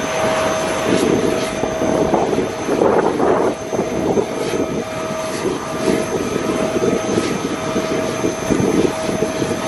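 Jet airliner engines running at the airfield: a steady whine over an uneven, swelling low rumble.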